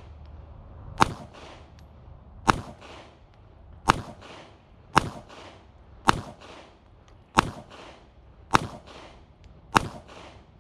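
Eight single shots from a SIG P365 micro subcompact 9mm pistol, slow aimed fire about one shot every second and a quarter. Each shot is followed by a short echo.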